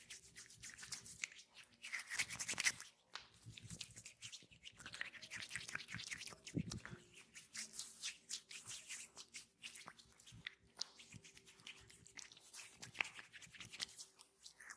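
Hands rubbing and kneading skin in an oil massage: a dense, irregular run of soft rubbing and slick, squishy friction sounds with small clicks.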